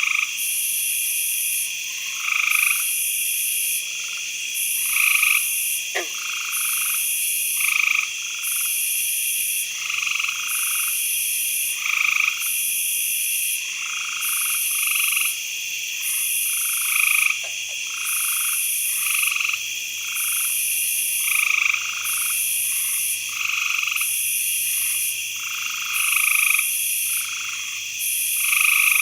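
Chorus of calling frogs: a steady high trill with calls repeating evenly about every two seconds.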